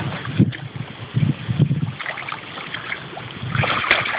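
A Weimaraner splashing and pawing in shallow water, in irregular splashes that come thicker and louder near the end.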